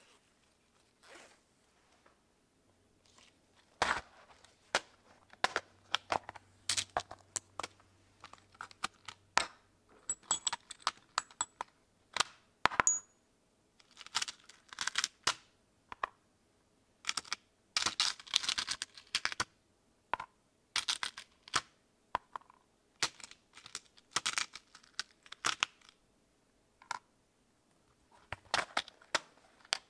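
Small brass snap fasteners clicking and rattling in a clear plastic compartment box as fingers pick through them and set pieces down, in irregular quick clatters with short pauses.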